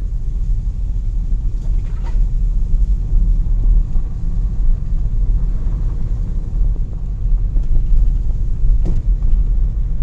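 Low rumble heard inside a car's cabin as it drives slowly along a dirt forest track, engine and tyres on the rough ground, at about 20 km/h. There are faint knocks about two seconds in and again near the end.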